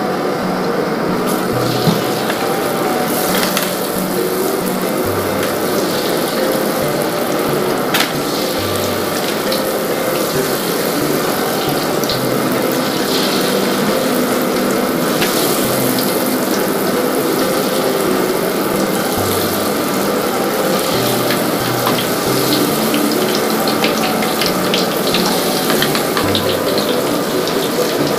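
Battered eggplant slices deep-frying in hot oil in a wok: a steady sizzle, with background music under it and a couple of sharp clicks.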